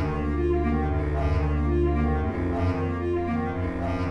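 Background music with held low notes and a slow, steady line of changing chords.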